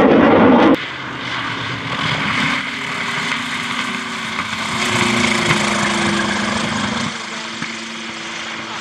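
A jet's roar cuts off abruptly under a second in. Then the F4U Corsair's radial piston engine drones at low power as the fighter lands and rolls down the runway, dropping away about seven seconds in.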